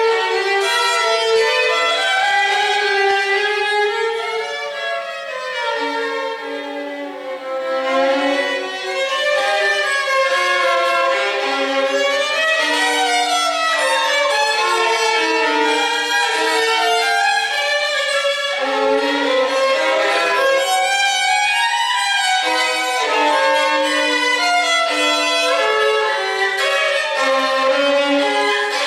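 Instrumental music: a melody of held and moving notes in a high register.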